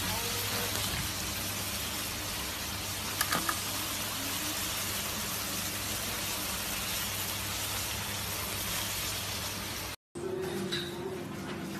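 Slices of meat sizzling steadily in melted butter on a hot plate, with a few quick clicks of metal tongs just after three seconds in. The sizzle cuts off about ten seconds in, giving way to a quieter background.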